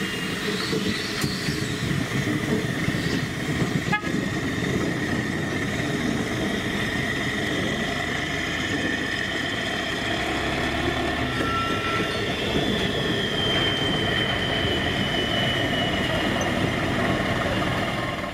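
A small narrow-gauge diesel locomotive and its short train of wagons moving slowly round curved track, with a steady low running rumble. Steady high-pitched tones sit over the rumble, and about two-thirds through one of them slides slowly down in pitch.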